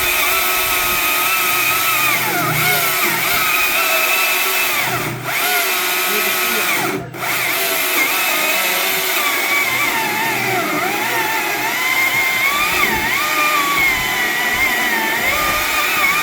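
Stihl MSA 260C battery chainsaw running and cutting: a steady electric motor whine with chain noise, its pitch wavering under load. It eases off briefly twice, about five and seven seconds in.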